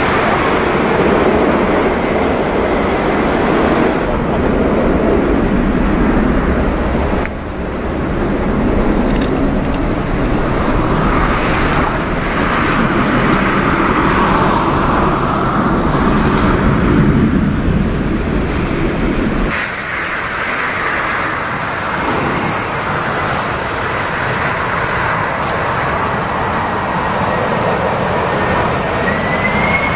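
Jet airliner engines running loudly across several spliced shots, the sound changing abruptly at each cut: a four-engined Boeing 747 freighter on its landing roll, a three-engined McDonnell Douglas MD-11 climbing after takeoff, and a Boeing 747 on approach.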